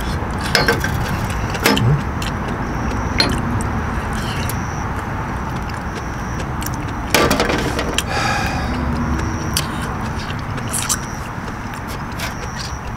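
Clinking and clicking from eating and drinking: chopsticks tapping a metal noodle tray, and a glass soju bottle knocking against a shot glass as it is poured, with a few sharp clicks scattered through.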